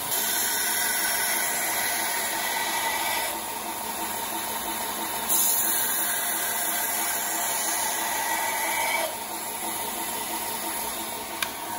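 Belt sander running at low speed with a 150-grit belt while a steel drill bit is ground on it by hand. The grinding hiss comes in two spells of about three seconds each, over the machine's steady run with a faint regular pulse. It eases off about nine seconds in.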